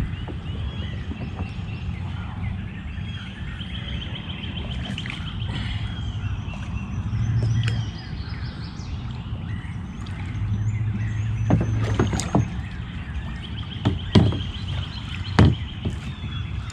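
Kayak paddle and landing net being handled aboard a plastic kayak, with a few sharp knocks against the hull in the second half. Birds chirp now and then over a steady low rumble.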